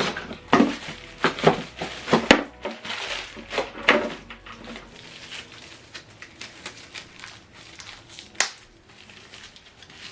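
Plastic packaging crinkling and small accessories clicking and knocking as they are handled. The knocks come thickly at first, then thin out, with one sharper knock about eight seconds in.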